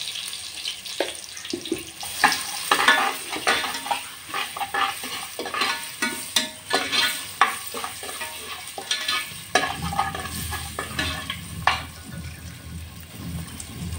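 Slotted metal ladle stirring and scraping in an aluminium pressure cooker with irregular clinks, while oil sizzles around curry leaves, ginger and spice powder.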